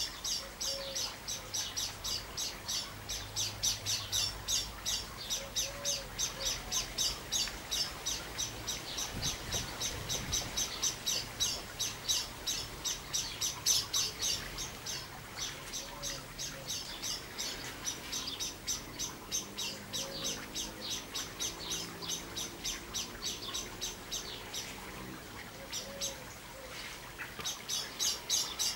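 A small bird chirping rapidly and evenly, about four high chirps a second, with a short break near the end.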